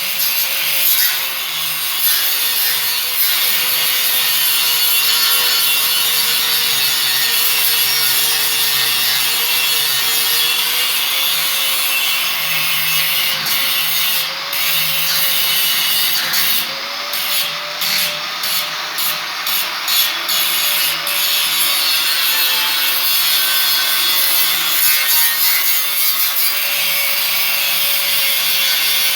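Power tool, likely an angle grinder, grinding metal continuously. Its motor holds a steady tone that wavers slightly as the load changes, under a harsh, continuous rasp.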